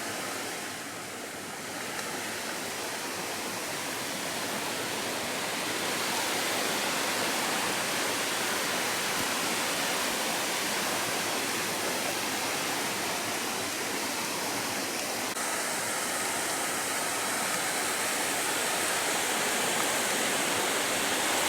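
Nachi Falls, a tall single-drop waterfall, pouring: a steady rush of falling water that grows louder over the first several seconds.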